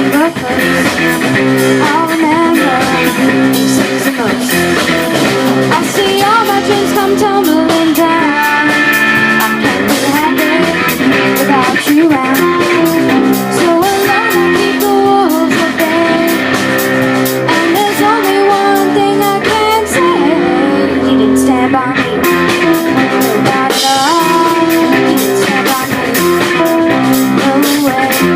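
Live rock band playing a song: a singer over electric guitar, bass and drum kit.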